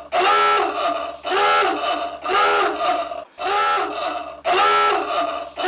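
Pigeon calling over and over, one arching call about every second and a bit, each call much like the last: the call the uploader gives as a jealous pigeon's.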